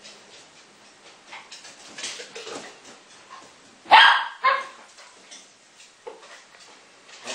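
Dogs barking in play: two loud, sharp barks in quick succession about four seconds in, with a few fainter barks before and after.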